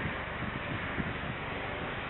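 Steady rumble and hiss of jet airliner engines running at a distance, mixed with wind noise.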